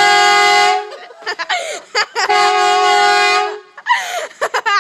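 Air horn blasting twice, a loud steady high tone: the first blast cuts off under a second in, the second lasts about a second and a half. High-pitched voices cry out between and after the blasts.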